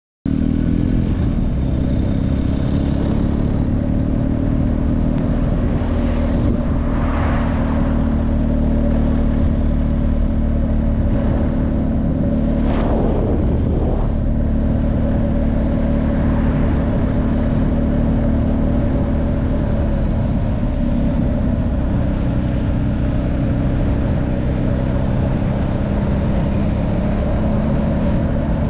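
Wind buffeting a helmet-mounted camera on a moving BMW R 1250 GS motorcycle, with the bike's boxer twin engine running steadily underneath. Brief swells of passing noise come about seven and thirteen seconds in.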